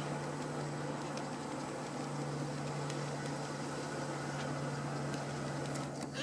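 A steady low mechanical hum over a noisy background, with a brief rising squeak near the end.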